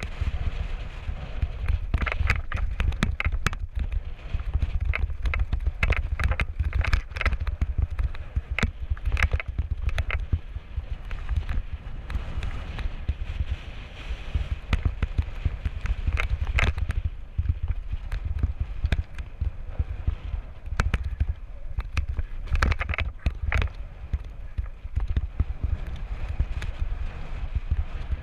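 Mountain bike descending rocky singletrack: a steady wind rumble on the microphone, with frequent clatter and rattle from the bike and tyres over rocks and ruts, in several busier spells.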